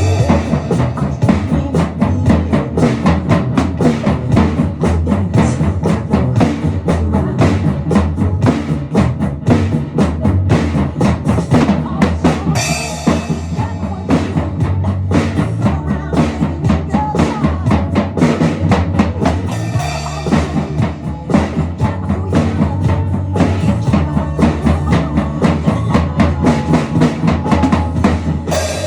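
A drum kit played in a fast, steady beat of bass drum and snare strokes, with cymbal crashes now and then.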